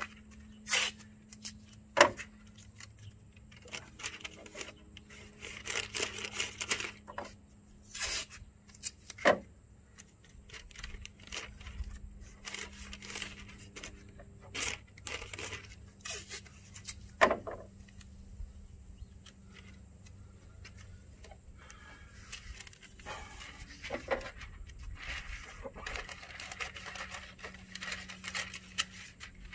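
Blue painter's tape being pulled off the roll and torn, with brown masking paper crinkling and rustling; scattered sharp snaps and crackles, the loudest about two seconds in.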